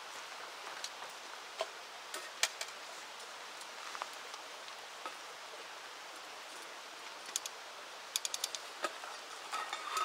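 River water running steadily, with scattered sharp clicks and taps over it, including a quick run of about five clicks about eight seconds in.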